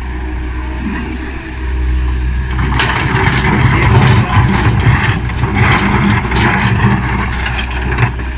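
Komatsu PC160LC hydraulic excavator's diesel engine running and working harder about two seconds in, with rocks clattering and scraping as the bucket digs into the rock pile from about three seconds in until near the end.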